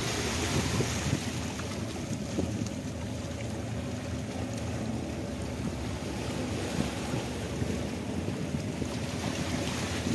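Wind buffeting the microphone over a low, steady drone of the docking passenger ship's and tug's engines.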